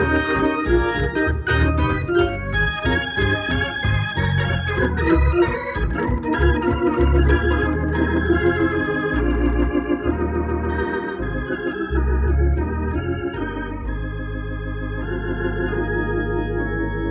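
Hammond B3 organ played through a Leslie 122 speaker cabinet: changing chords with low bass notes underneath, settling near the end into one held chord over a steady bass note. This is the organ being played after servicing.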